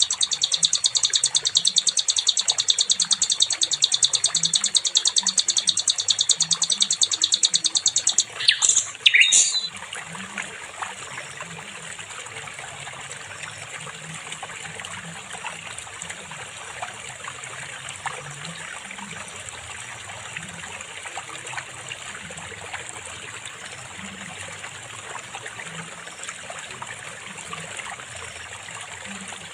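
Sikatan londo flycatcher song: a loud, fast, dense trill for about the first eight seconds, then a couple of quick sweeping whistles about nine seconds in. After that the bird falls silent, leaving a faint steady high hiss with a trickle of water.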